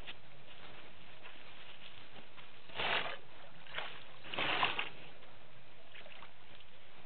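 Two brief splashes of disturbed water over a steady hiss, about three seconds and four and a half seconds in, the second the louder, with a faint one between them.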